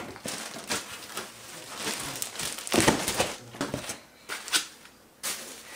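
Plastic packaging wrap crinkling and rustling as chair parts are handled and unwrapped, loudest about three seconds in, with a few sharp crackles near the end.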